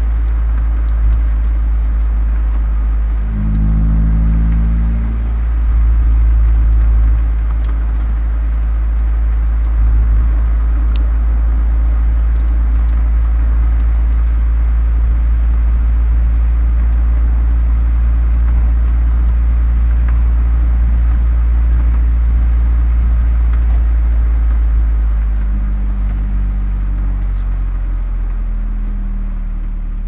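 1994 Nissan Primera P10 1.6 SLX's 1.6-litre four-cylinder petrol engine and exhaust running under way with a steady deep drone. The revs rise briefly a few seconds in, and the engine drops to lower revs and gets a little quieter near the end as the car eases off.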